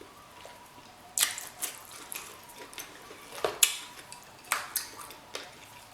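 Close-miked eating of king crab legs: a series of sharp, wet clicks and crackles as the shells are snapped open and the meat is eaten, irregularly spaced over several seconds.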